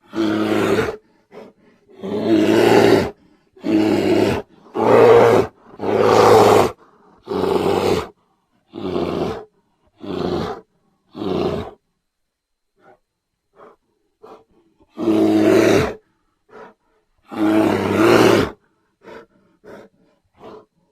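Bear roaring: a series of separate roars, each about a second long, coming close together at first, then more spread out with faint short grunts between and two long roars near the end.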